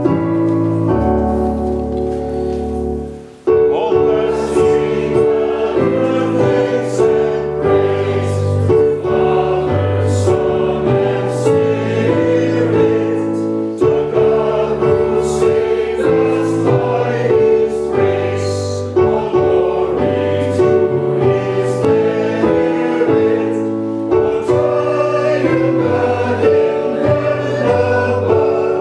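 Choir singing gospel-style music with accompaniment. A held chord fades out over the first three seconds, then the music cuts abruptly back in at full level.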